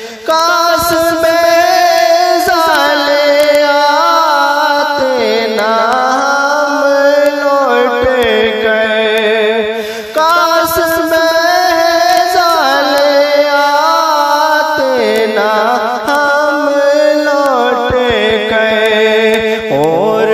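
Wordless melodic singing in the style of a naat: one voice holding long, ornamented phrases with gliding pitch, with a brief break about ten seconds in.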